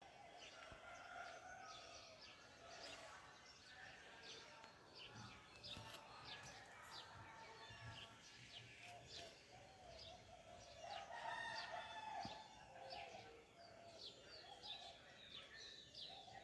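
Faint chirping of many small birds, quick short notes over one another, with a lower drawn-out call rising over them about eleven seconds in.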